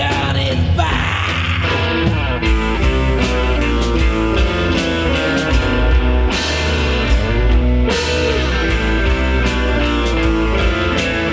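A 1980 punk rock song played from a 7-inch single: electric guitar, bass and a drum kit, loud and steady.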